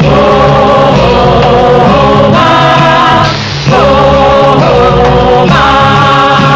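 Kannada film-song music: a chorus of voices singing long held notes with instrumental backing. The voices break off briefly about halfway through and come back in with a sliding note.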